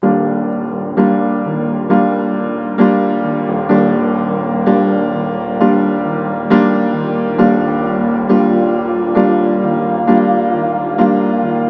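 Background piano music: slow, sustained chords struck about once a second, starting suddenly after silence.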